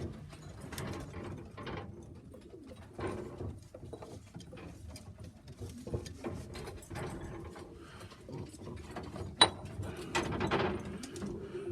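Pigeons cooing softly in a loft, with scattered clicks and shuffling and one sharp knock about nine seconds in.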